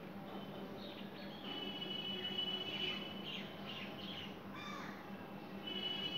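Crows calling several times in quick succession, over a steady high tone and a low steady hum.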